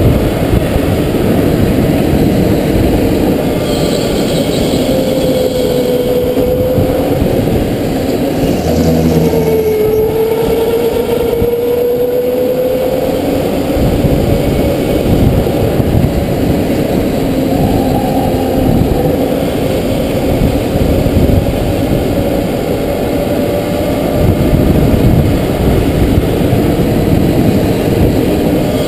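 Indoor rental go-kart running at speed on the track, its motor note dipping and rising gently with the throttle through the corners over a steady rush of noise.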